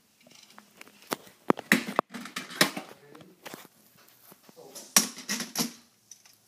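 Scattered knocks and clatters of a hard plastic toy being handled and knocked about, about eight sharp hits spread unevenly with quieter rustling between them.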